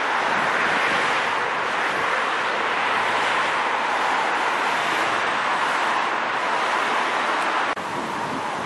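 Steady rushing noise of street traffic passing, which drops off suddenly near the end.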